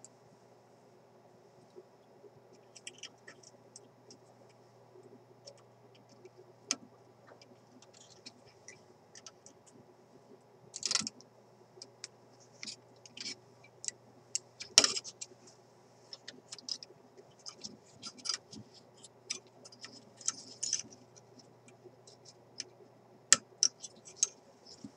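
Scattered small clicks and light scrapes of hand tools working on a vintage radio chassis, with sharper clicks about 11 and 15 seconds in, over a faint steady hum.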